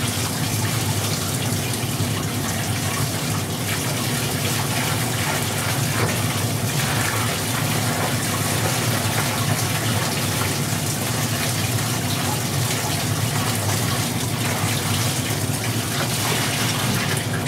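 Water poured steadily from a plastic bucket into a sump pit, filling it to lift the float switch that should start the main sump pump.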